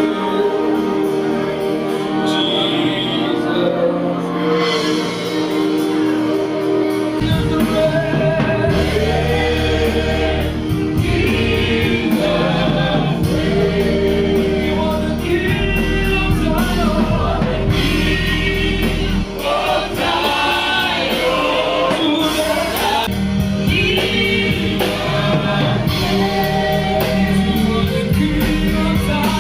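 Gospel praise music: voices singing over instrumental backing. A deep bass line comes in about seven seconds in.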